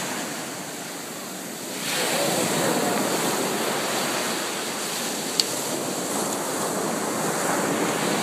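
Surf washing onto the beach, an even rush of noise with wind on the microphone, swelling about two seconds in. A single short click about five seconds in.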